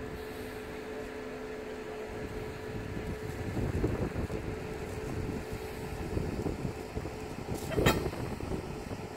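A steady machine hum under low rumbling gusts of wind on the microphone, with one sharp knock about eight seconds in.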